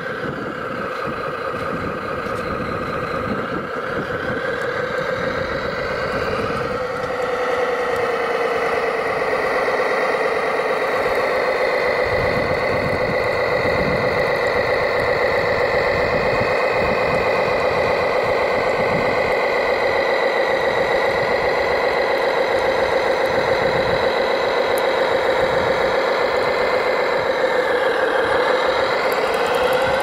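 A radio-controlled Liebherr 741 model bulldozer running with a steady engine-like drone. The drone rises in pitch about seven seconds in and dips briefly near the end, as the dozer pushes into a pile of stones, with irregular low crunching in the middle.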